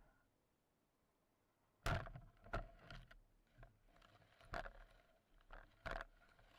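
A series of irregular sharp knocks and clicks, each with a brief faint ringing. They start about two seconds in, and the loudest fall at about two, two and a half, four and a half and six seconds.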